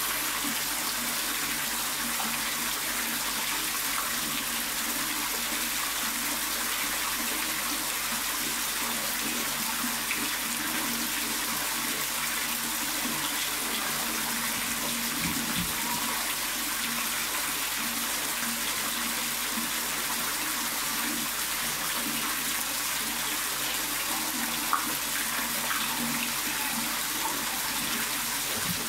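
A stream of water pouring steadily into a koi tank, splashing on the surface. One brief tick near the end.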